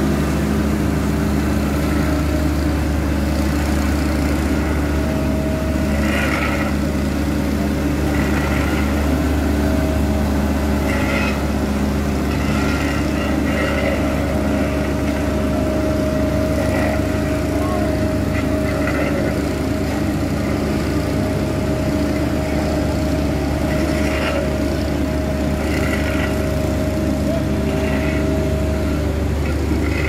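Diesel engine of a Dynapac asphalt paver running steadily at a constant speed, with a steady higher whine joining partway through and fading near the end.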